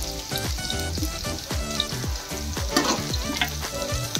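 Chopped onion and green chillies sizzling in hot oil in a kadhai, stirred with a metal spatula that scrapes across the pan about three quarters through. A steady low beat runs underneath.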